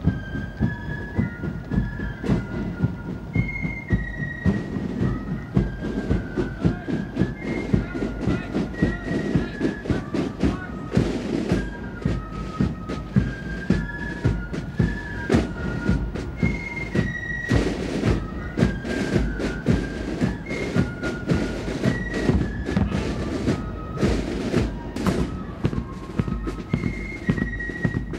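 A military corps of drums playing a march: fifes carry a high, quick melody over rapid side-drum beating.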